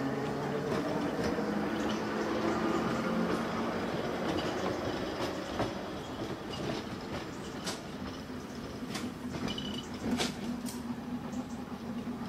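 Electric trams running on the narrow-gauge track: a steady low motor hum and rolling rumble as one tram pulls away. Several sharp clicks of the steel wheels on the rails come in the second half, as a second tram comes close.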